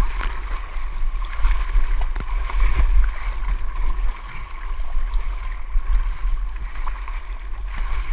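Sea water washing and splashing around a whitewater kayak, over a heavy, steady low rumble on the microphone.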